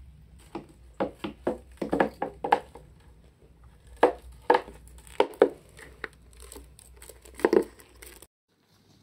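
Reeves' turtle's claws and shell clicking and tapping on a hardwood floor as it walks, in irregular bunches of sharp taps. The sound stops abruptly a little after 8 s.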